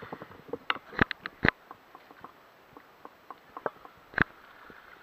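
Handling noise from a handheld camera: irregular clicks and taps of fingers shifting on the body, the sharpest about a second in, half a second later, and again near the end.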